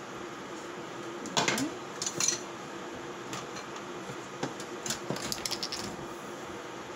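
Metal cooking utensil clinking and scraping against a pan in a few short clatters while ingredients are stirred.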